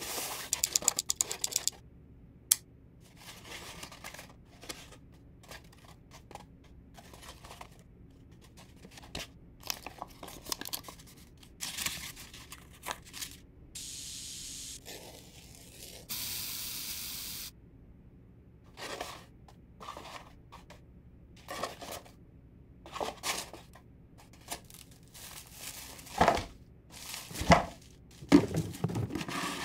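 Corrugated cardboard being handled, cut and torn in many short scratchy bursts. About halfway, a spray can hisses in two steady blasts of a couple of seconds each. Near the end come louder rustles and thumps as mesh sacks of potatoes are handled.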